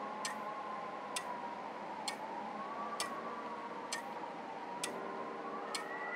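Ambient soundtrack music: a clock-like tick about once a second over a sustained, slowly wavering tone that rises in pitch near the end.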